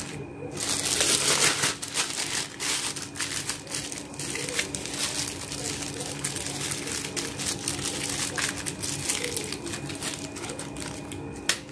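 Thin clear plastic bags crinkling and rustling as hands handle and tie them around a soft bait mixture, loudest about a second in, with many small crackles throughout.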